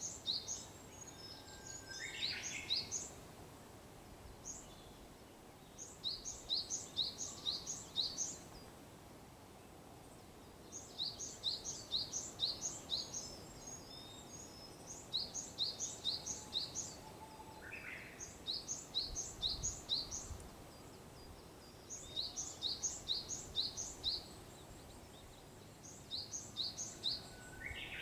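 Songbirds at dawn: a small bird repeats phrases of rapid, high, paired chirps, each phrase about two seconds long, every few seconds. Three times a fainter Japanese bush warbler song comes in, a held whistle followed by a quick flourish.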